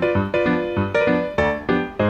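Background piano music: a quick, even run of notes, about four a second.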